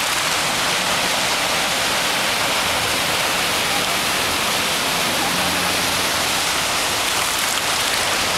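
Steady rush of floodwater, with cars splashing through deep water on a flooded road.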